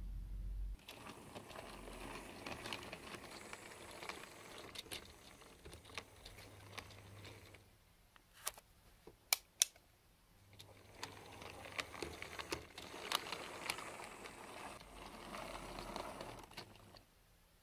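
OO-gauge model diesel shunter on a Hornby 0-4-0 chassis, with its wagons, running on the layout's track: a light rattling with many small clicks. It goes quieter for a few seconds about halfway, with a few sharp clicks, then the rattling picks up again as the shunter moves.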